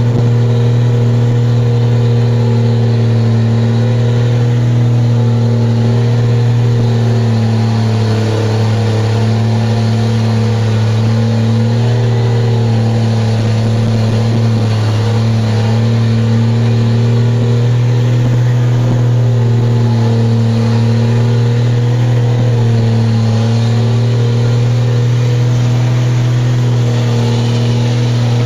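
Straight-piped Cummins six-cylinder diesel of an ERF E10 290 truck, with no silencer, running loud and steady as the truck drives, heard from inside the cab. Its note holds a fairly constant pitch with slight dips.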